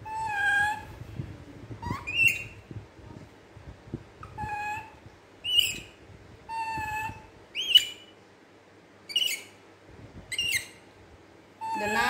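Baby macaque giving about ten short, high-pitched coo calls, roughly one every second; some are held level and some slide upward. Faint rustling runs underneath.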